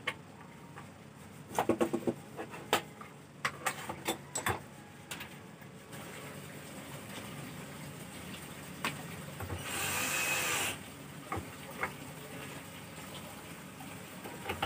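Cordless drill with a screw bit running for about a second, driving a screw to fasten a concealed cabinet hinge into plywood. Around it are a quick run of clicks and scattered taps of the screws, hinge and drill being handled.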